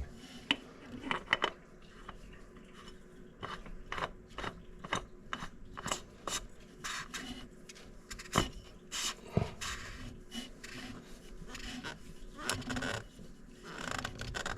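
Light scrapes, rubs and irregular clicks of hands handling a new oil filter, readying it and spinning it onto its threads by hand.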